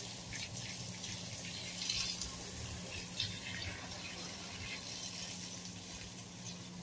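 Water spraying from a garden hose and splattering onto garden plants and leaves, a steady rush with a few brief louder splashes.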